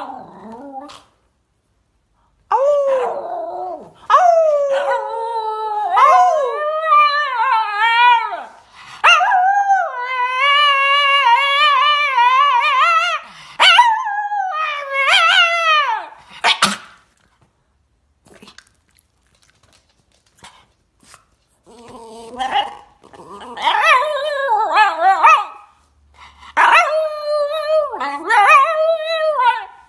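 Shiba Inu howling: a series of long howls with a wavering pitch. After a pause of a few seconds, shorter, choppier howling calls follow.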